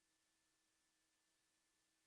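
Near silence: faint hiss with a very faint steady hum.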